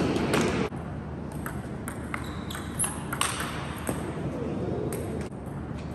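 Scattered sharp clicks of a table tennis ball bouncing and being knocked about between points, with a louder clatter right at the start.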